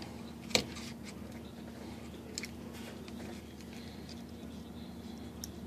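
Quiet handling of a handheld two-way radio's plastic housing and circuit boards while its ribbon cable is fitted: one sharp click about half a second in, then a few faint ticks and light rubbing over a steady low hum.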